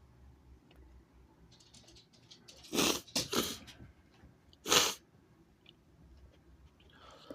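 A person sneezing three times, sharp and explosive: two sneezes close together about three seconds in, then a third, the loudest, a second or so later. Faint breaths or sniffles come before and after.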